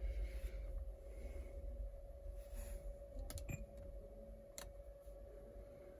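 A few sharp clicks of the front-panel buttons on a Pioneer AVIC-F550BH car head unit being pressed: two close together a little past three seconds in and one more about a second later, over a faint steady hum.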